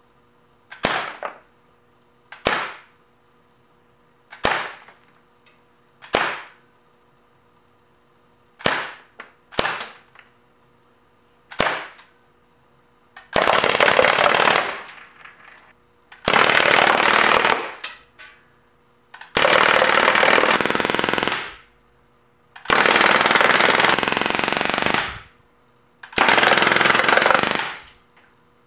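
Crosman A4-P CO2-powered BB air pistol firing: about eight single semi-auto shots a second or two apart, then five long full-auto bursts of two to three seconds each.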